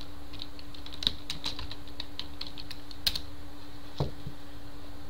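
Typing on a computer keyboard: a quick run of keystrokes for about three seconds, then a single louder knock about four seconds in.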